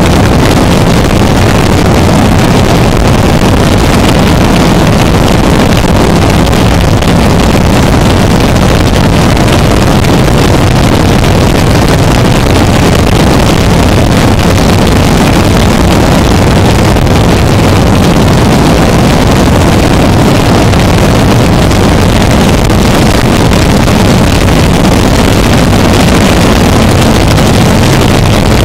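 Harsh noise music: a loud, unbroken wall of distorted noise over a steady low hum, with no beat or melody.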